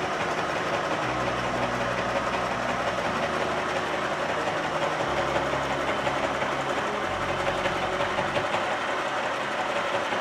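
Chillaxplus 618 electric sewing machine running at speed, stitching fabric with a fast, steady needle clatter.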